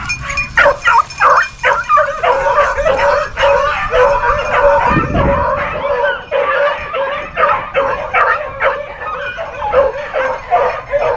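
Several hound puppies barking and yipping over one another in a near-continuous chorus while they hunt for a rabbit's scent. A brief low rumble comes about five seconds in.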